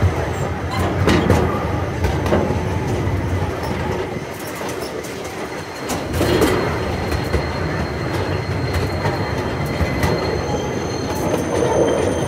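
Miniature park train running on its track: a steady rumble of wheels on rails with scattered sharp clicks. It eases off briefly about four seconds in, and a faint high thin tone comes in after.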